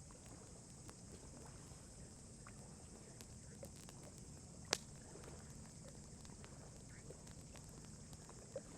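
Wood campfire crackling: scattered faint pops and ticks, with one sharp pop about halfway through and a smaller one near the end.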